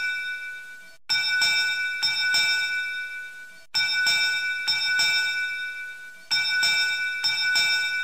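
A bell ringing in repeated bursts of about four strokes each. A new burst starts roughly every two and a half seconds, three times, and each one fades away before the next.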